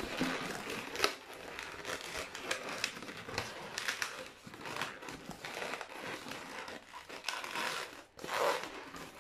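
Inflated green latex modelling balloon being twisted and folded by hand into an ear twist: irregular short rubbing and creaking of stretched latex under the fingers.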